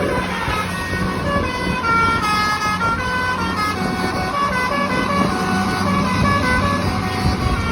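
A bus's basuri "telolet" multi-tone horn playing a melody of quick notes that step up and down in pitch.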